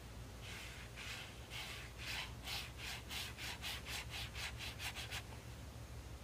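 Water brush scrubbing back and forth across mixed-media sketchbook paper, a run of about fourteen rasping strokes that quicken to about three a second and stop about a second before the end.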